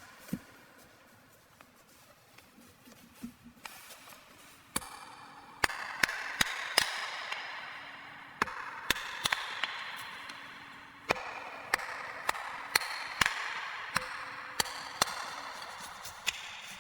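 Hand-tool work: a run of sharp, irregular knocks, one or two a second and louder from about five seconds in, with a rustling, scraping hiss between the strikes.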